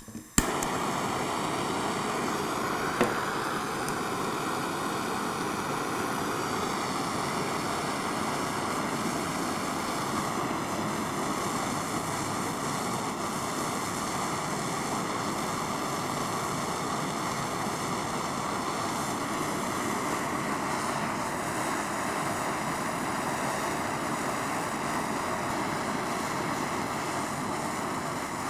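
Blowtorch lit with a sharp click, then its flame hissing steadily while it heats a hinge toward red hot, with one more brief click about three seconds in.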